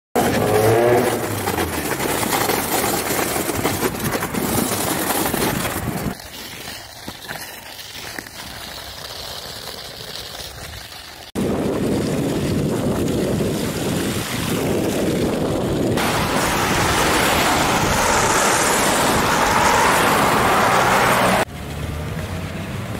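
Inline skate wheels rolling and splashing through puddles on wet asphalt and over snow, a steady rushing noise. Its loudness and tone change abruptly several times as one clip cuts to the next.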